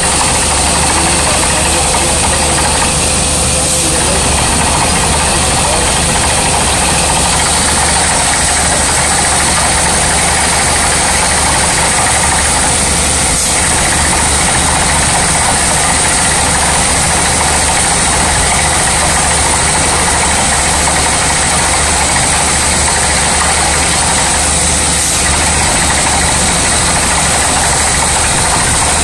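Truck-mounted tube-well drilling rig running steadily as it drills into rock, a loud, continuous mechanical din.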